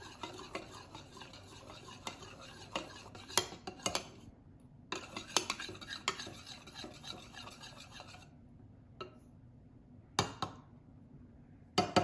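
A stirring utensil mixing white acrylic paint into water in a container, scraping and clinking against its sides in two stretches of steady stirring, then a few single knocks near the end.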